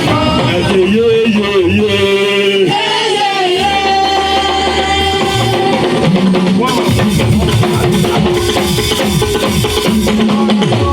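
Live church praise music: a voice holding long sung notes over a band with drums.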